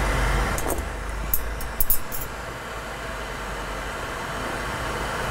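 Lampworking bench torch burning with a steady rushing hiss. About one to two seconds in come a few quick, light clinks, as of glass rods touching.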